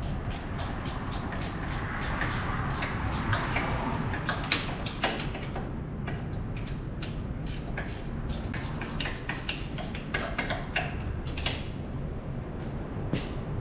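Metal hand tools clicking and clinking as engine bolts are worked loose, several sharp clicks a second, thinning out near the end, over a steady low hum.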